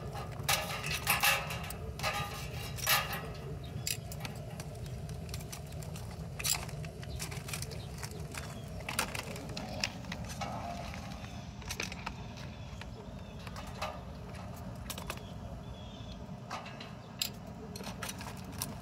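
Metal crab tongs clicking and scraping on the shells of live blue crabs, with scattered sharp clacks as the crabs are gripped and dropped into a steel steamer pot. A low steady rumble runs underneath.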